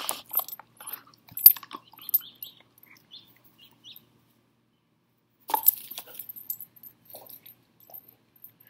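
Scattered light clicks and taps as a dog mouths and drops a rubber fetch ball, with a short louder clatter about five and a half seconds in.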